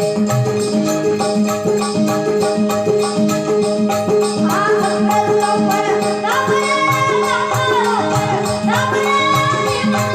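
Rajasthani devotional song in praise of the guru, with held instrument notes over a steady beat of jingling percussion; a young singer's voice comes in about halfway and sings two more phrases toward the end.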